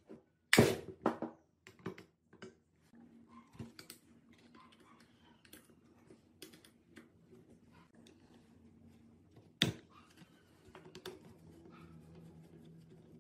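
Small metal clicks and clinks of hand tools on an old two-stroke chainsaw's engine casing as it is taken apart, with an Allen key working a screw by the cylinder. Two sharp knocks stand out, one about half a second in and one near ten seconds, with a quick run of clicks between one and two and a half seconds.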